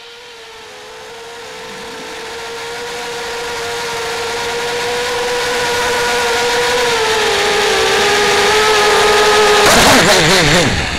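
FPV quadcopter's motors whining at a steady pitch and growing louder. About ten seconds in, the whine warbles wildly amid a sudden rush of noise and knocks as the quad goes down.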